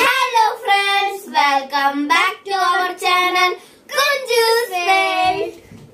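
Children singing a short tune together in several held, gliding notes, breaking off shortly before the end.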